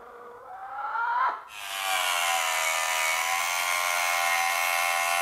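Harbor Freight Mighty Mite 4-inch mini table saw, its small universal brushed motor spinning the blade. A short rising whine comes first, then from about a second and a half in the saw runs steadily with a high whine while a thin strip of wood is cut.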